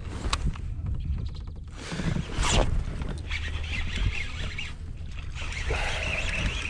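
Low wind rumble on the microphone, with a short scuffing noise about two seconds in. Near the end comes splashing from a small hooked bass thrashing at the surface as it is reeled toward the kayak.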